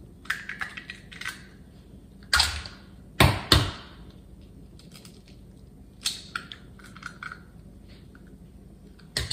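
Raw eggs being cracked by hand: a few sharp knocks of the shells being struck, two close together about three seconds in, with softer clicks of shell being pulled apart between them.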